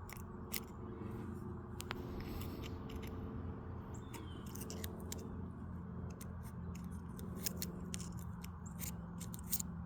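Light metallic clicks and small scrapes from handling the parts of a backhoe hydraulic swivel joint, coming thicker near the end, over a steady low hum.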